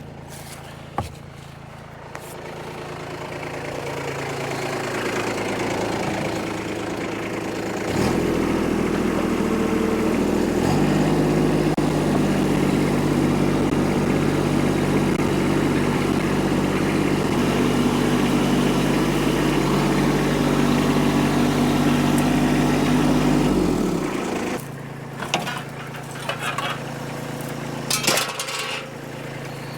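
Vehicle engine running: it builds over the first several seconds, steps up louder about eight seconds in and holds there, then drops back to idle about three quarters of the way through. A few sharp clicks or knocks come near the end.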